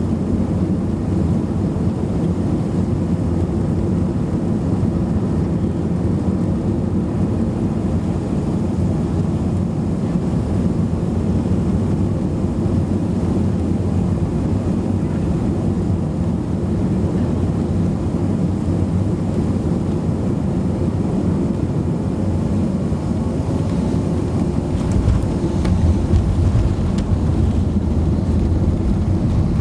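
Cabin noise of a Boeing 737-200 with Pratt & Whitney JT8D-17 engines during the landing: a steady rumble and rush of engines and airflow. It turns heavier and rougher about 25 seconds in, with a few knocks near the end.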